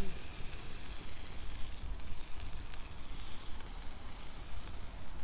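Octopus tentacles sizzling on a wire grill over hot wood coals: a steady hiss with a few faint crackles from the fire.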